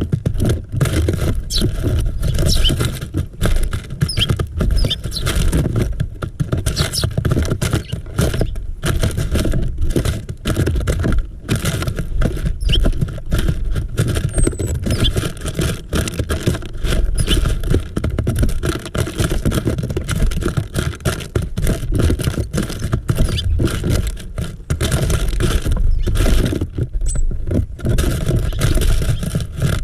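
Wind rumbling on the microphone of a GoPro mounted inside a bird feeder, with frequent knocks and scratches against the feeder and a few short, high chirps from small birds.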